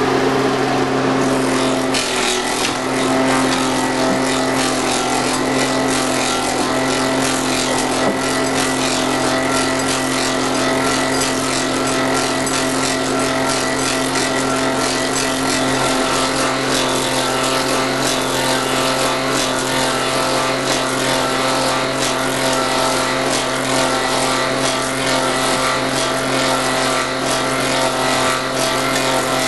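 1930s German Jürgens copying lathe running, its fast-spinning knives cutting the outside shape of a wooden clog while tracing a model. Steady, loud machine hum under a continuous dense noise of wood being cut.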